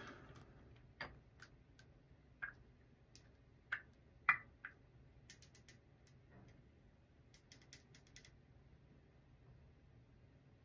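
Small scattered clicks and ticks from handling a glass dropper bottle: the dropper cap being unscrewed and the glass pipette knocking against the bottle's neck. There are about a dozen light ticks, the loudest about four seconds in, with a short cluster near the end.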